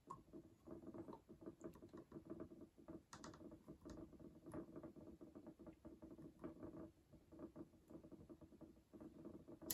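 Faint, irregular small ticks and scrapes of a small Allen key turning a set screw into the rotary's drive piece, over a faint steady hum.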